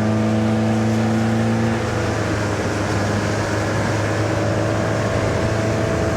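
Motorboat engine running steadily under way, its pitch shifting slightly about two seconds in, over the rush of water and wind.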